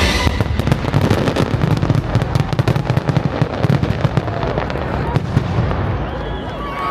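Closing barrage of a fireworks display: many rapid bangs and crackles overlapping over deep booms, thinning out in the last second.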